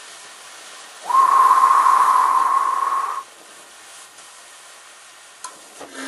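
Propane torch jet hissing into the hot kiln's side hole, feeding gas for reduction firing. About a second in it swells to a loud hiss with a steady whistle, and after about two seconds it drops back to a faint hiss.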